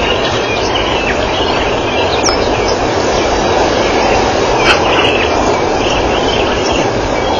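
Steady rushing background noise of the bush, with birds chirping briefly now and then, the clearest chirps about two and five seconds in.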